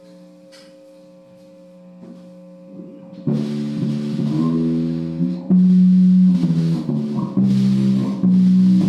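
Music: a quiet held chord, then about three seconds in a louder passage of electric guitar with bass and drums.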